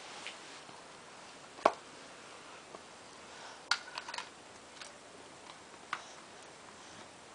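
A few light, scattered clicks and knocks, the loudest about a second and a half in and a small cluster around the middle: a toddler handling a plastic toy phone inside a plastic storage bin.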